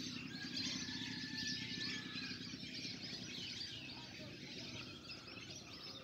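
A flock of migratory wild ducks calling, a dense twittering chorus of many birds at once, with one thin whistle held for about two seconds near the start.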